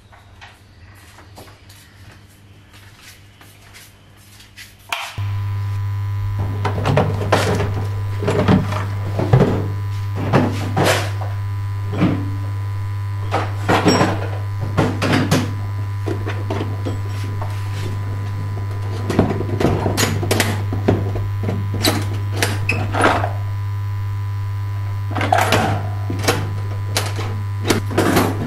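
A steady low electrical hum, like mains hum, switches on abruptly about five seconds in and holds. Irregular knocks, clicks and clatter of things being handled sound over it.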